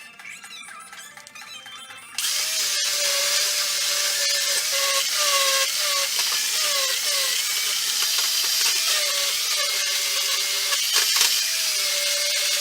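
Handheld electric power tool running on metal, starting about two seconds in. It makes a steady whine with a loud hiss, and the whine dips and bends in pitch several times as the tool is loaded.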